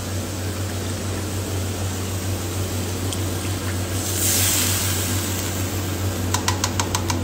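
Water poured from a jug into a small cup, then the cup's contents splashed into a stainless steel wok of hot sauce about four seconds in, over a steady low hum. Near the end, a seasoning bottle is shaken over the wok, giving a quick run of ticks, about seven a second.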